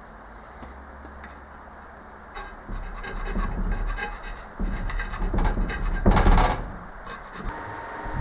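Hand scraping a metal bar flat for a lathe bed way: a series of irregular rasping scraper strokes that start about two seconds in, the loudest about six seconds in.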